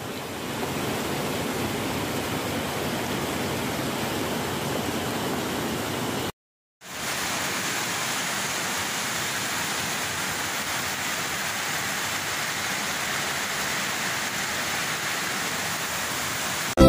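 Heavy rain and rushing floodwater: a steady rushing noise. It cuts out for a moment about six seconds in, then comes back brighter and hissier.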